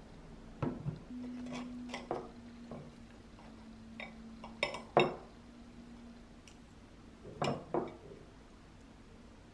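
A metal knife and fork cutting French toast on a plate: scattered clinks and scrapes of cutlery against the plate in small clusters, the loudest about five seconds in.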